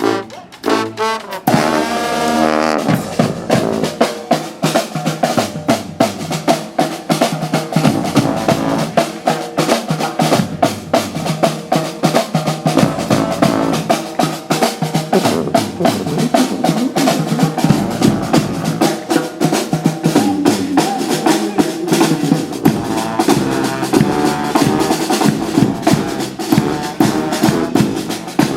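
Live brass street band playing: horns over snare and bass drums with a steady beat. The horns come in strongly about two seconds in.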